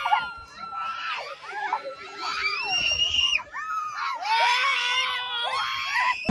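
Riders screaming on a swinging Columbus (pirate-ship) fairground ride: several high voices overlapping in long screams that rise and fall with the swings.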